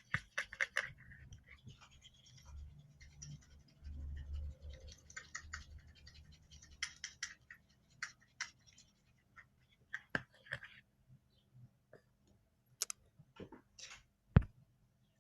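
A stirrer scraping and tapping in a container of powdered soap mixed with hot water, worked until it foams. Quick scraping strokes for about the first second, then scattered scrapes and taps, with a sharp knock near the end.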